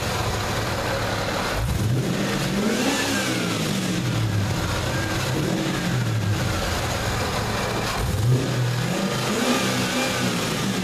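Holden Commodore SV8's 5.7-litre LS1 V8 idling and revved twice, about two seconds in and again about eight seconds in, each time rising in pitch and falling back to idle.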